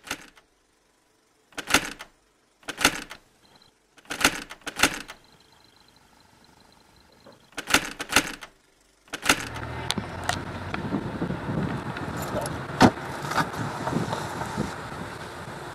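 Six short, sharp bursts with silence between them. Then a steady outdoor background noise begins, with a few sharp knocks on a wooden front door near the end.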